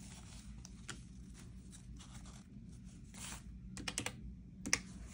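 Soft rustling and light clicks of paper banknotes and cash envelopes being handled and sorted, with a brief swish about three seconds in and a few sharper clicks near the end.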